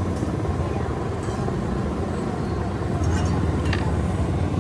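Steady rumble of street traffic, with a few sharp clinks of a metal spatula against a griddle.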